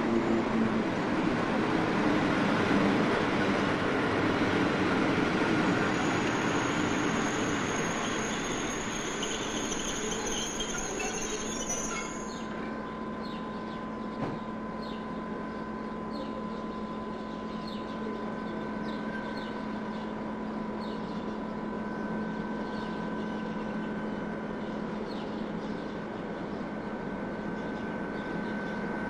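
Passenger train rolling slowly along the platform and coming to a stop. A high squeal sounds for several seconds and cuts off as it halts about twelve seconds in. The standing train then hums steadily.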